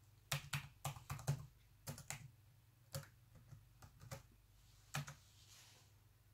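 A password being typed on a Lenovo ThinkPad X131e laptop keyboard: a run of irregular key clicks that stops about five seconds in.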